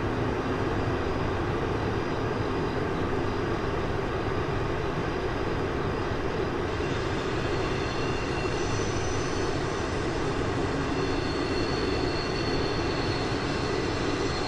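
Steady rumbling roar of a freight train hauled by an EF65 electric locomotive. A faint hum under it fades out about four seconds in.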